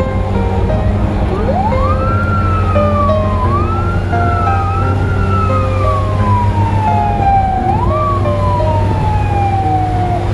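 Emergency vehicle siren wailing in slow sweeps: it rises steeply about a second in, falls away slowly, and sweeps back up three more times. Background music with short stepped notes plays underneath.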